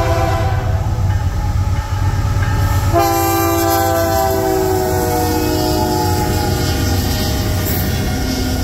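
Canadian Pacific diesel locomotive at the head of a freight train sounding its horn chord: the horn trails off near the start, then blasts again about three seconds in as the locomotive passes close by, its pitch dropping as it goes past. Under it, the steady rumble of the locomotives and the freight cars rolling over the rails.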